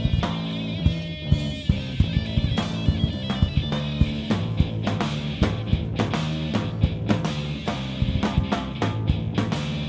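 Live rock band playing an instrumental passage: electric guitar and bass over a drum kit keeping a steady, driving beat.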